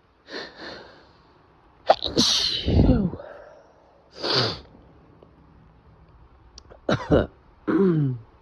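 A person sneezing several times in a row, with a loud sneeze about two seconds in and more close together near the end. The last one trails off in a voiced sound falling in pitch.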